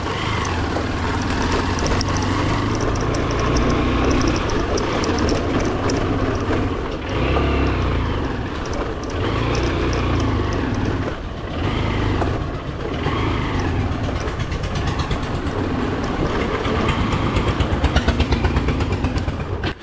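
Motorcycle engine pulling in low gear up a rough, bumpy dirt track, revving up and dropping back several times, with clatter and knocks from the uneven ground.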